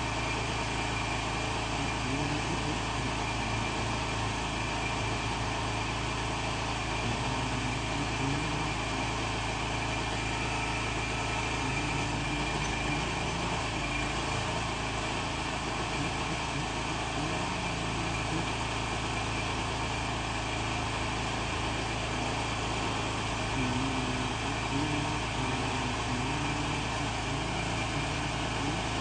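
Container delivery truck's engine running steadily at idle.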